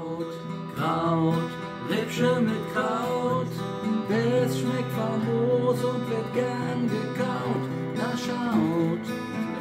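Instrumental music led by a strummed acoustic guitar, with a moving melody line over it.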